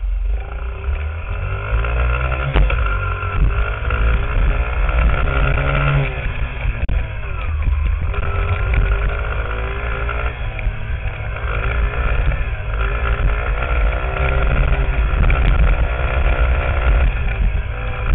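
Small 50cc dirt bike engine revving hard and easing off over and over while riding, its pitch climbing and dropping every few seconds. Heavy wind rumble on the bike-mounted microphone runs underneath.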